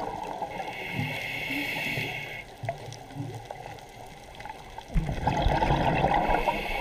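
Scuba diver breathing through a regulator underwater: a hissing inhalation, then about five seconds in a loud gurgling rush of exhaled bubbles.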